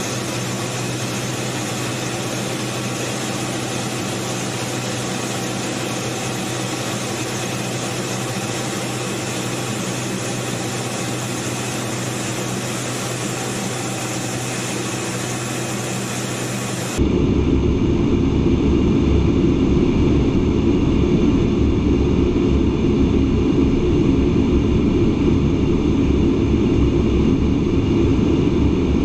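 Steady noise inside the cockpit of an A-10 Thunderbolt II in flight: the twin turbofans and rushing air make a constant hiss with several fixed tones. A little over halfway through it cuts abruptly to a louder, deeper, steady cockpit drone.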